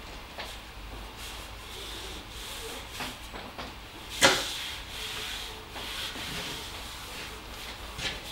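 Adhesive tape being pulled off the roll and rubbed down along the seam between the lid and the copper kettle of a pot still, to seal it airtight: a scratchy rubbing with small clicks, and one sharp snap about four seconds in.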